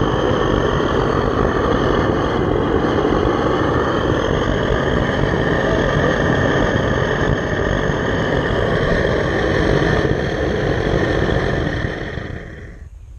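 Propane burner firing into a backyard melting furnace, a loud steady rushing noise while the aluminum charge heats in the crucible. It fades out over about a second near the end.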